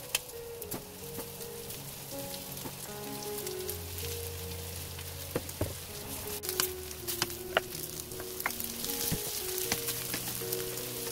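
Starch-coated beef pieces sizzling in hot oil in a nonstick wok, with scattered sharp clicks as they are turned; the sizzle grows louder toward the end. Soft background music plays underneath.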